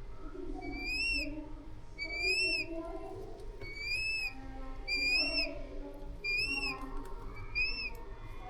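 Changeable hawk-eagle chick calling: a thin, high, rising-and-falling cheep repeated about once a second, six times.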